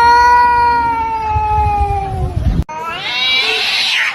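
A cat yowling: one long drawn-out call that slowly falls in pitch and cuts off abruptly about two and a half seconds in, then a second, harsher yowl that rises in pitch.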